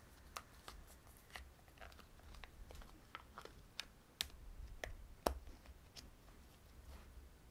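Sharp plastic clicks and taps of an iPhone 6 being pressed and snapped into a clear plastic phone case, a dozen or so scattered irregularly, the loudest about two-thirds of the way through.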